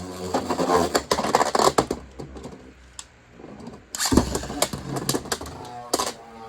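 Two Beyblades, a 3D-printed Agèma Ares and a Beyblade X Rhino Horn, spinning in a plastic stadium: a whine from the freshly launched tops, then rapid clattering collisions, a quieter stretch, and two hard hits about four and six seconds in.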